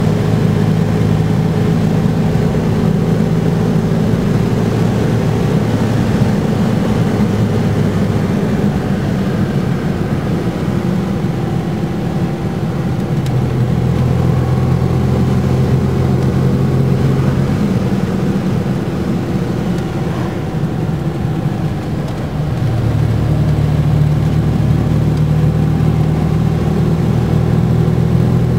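Engine and road noise of a moving vehicle heard from inside the cabin. The low engine hum steps up and down in pitch a few times as the speed changes.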